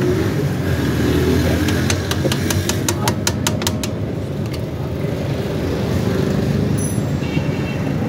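Steady low rumble of a motor vehicle engine running. Over it comes a quick run of light metallic clicks, about four or five a second, from pliers working on the drum-brake shoe assembly; the clicks stop about halfway through.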